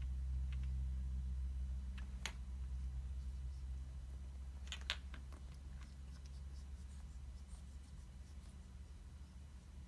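A few sharp little clicks, about two seconds in and again about five seconds in, as a cat bats at a string of lights, over a low steady hum.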